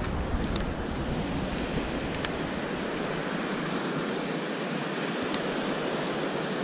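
Steady wash of surf on the beach, with low wind rumble on the microphone that dies away about halfway through. A few light clicks come about half a second in and again around five seconds in.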